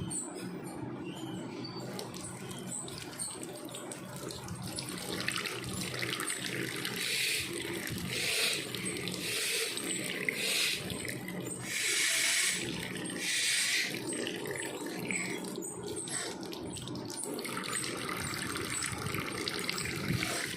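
Water running from a tap into a sink basin, with several louder splashing spells in the middle.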